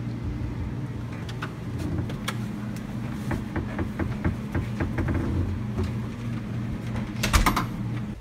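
A steady low hum with scattered light clicks and knocks, and a quick cluster of louder knocks near the end. The hum cuts off abruptly at the end.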